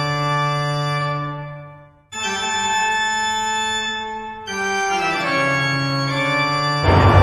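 Sustained organ chords, held steady, fading out to a short silence about two seconds in, then a new chord that shifts again midway. Near the end a loud, noisy crowd hubbub cuts in.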